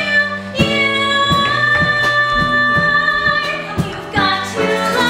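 A woman singing a show tune live, holding one long note through the middle, over instrumental accompaniment with struck notes that ring and fade.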